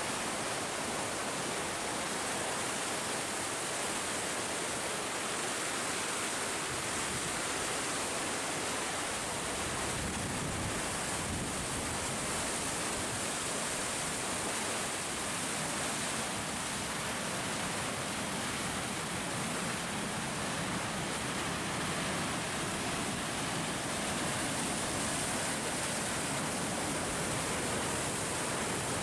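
Irrigation-canal water pouring over a low concrete weir: a steady, unbroken rush of falling water.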